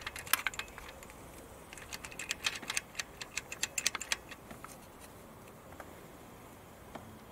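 Rapid small metallic clicks and clinks of a long socket wrench and the injector hold-down clamp being worked into place over a diesel injector, the clamp not yet sliding in. The clicks come in two quick flurries, at the start and again from about two to four seconds in, then die down to a few faint ones.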